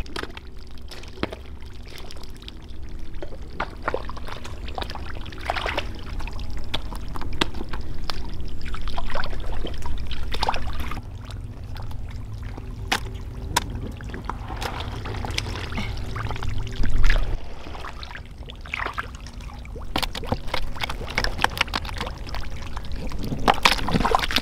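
Water splashing and pouring, broken by many small knocks and splashes.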